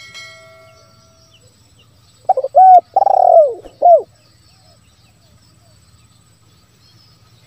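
Spotted dove cooing, about two seconds in: a few short coos, one long arching coo, then a short closing coo, the 'kuk, lambung, kuk' call used to lure wild spotted doves.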